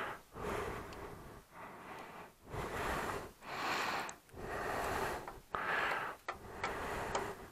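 A person breathing, in and out, about one breath a second.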